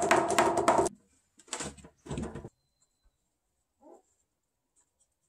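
Wooden shelf board slid back and forth in the groove of a solid-wood post: rapid wood-on-wood scraping with a squeaky ring, about five strokes a second, stopping about a second in. Two shorter scrapes follow, and a faint marker squeak comes near the end.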